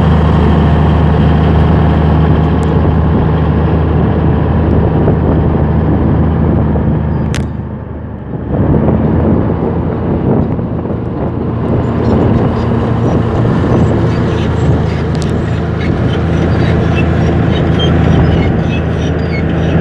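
Komatsu D155A bulldozer's diesel engine running steadily while working, dipping briefly about eight seconds in and then coming back up. A fast run of clicking, typical of steel track links, joins from about twelve seconds in.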